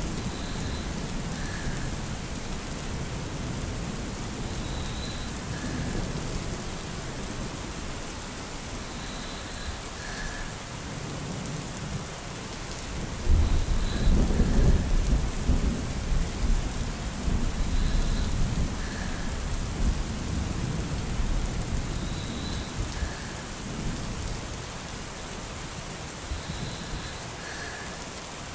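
Steady rain falling, with a long low roll of thunder swelling about halfway through and slowly fading away.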